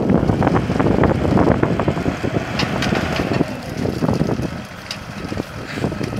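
Burning brush pile crackling, with the diesel engine of a Deutz-Fahr Agrotron K 110 tractor running as its front loader pushes branches onto the fire. Wind buffets the microphone.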